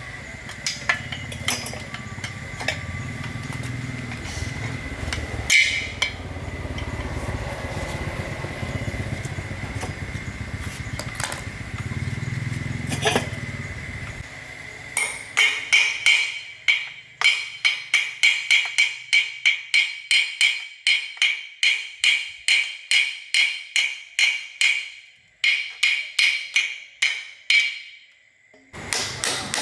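A steady low rumble with a few knocks, then from about halfway hammer blows on metal, each ringing briefly, at about two to three a second, with two short pauses near the end.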